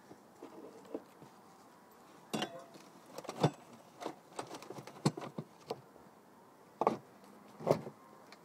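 Irregular knocks and clatters, about eight over several seconds, from the lid of a woven plastic storage box being opened and let down.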